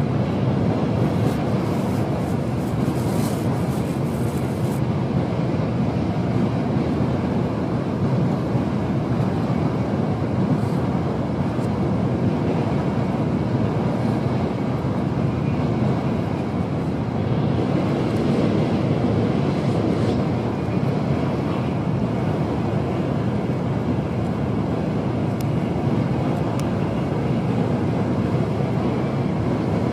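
Steady running noise of a Tokaido Shinkansen train at speed, an even rumble heard from inside the carriage.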